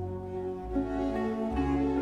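Baroque string orchestra playing slow, sad music: sustained bowed strings over low bass notes that step to a new pitch a few times.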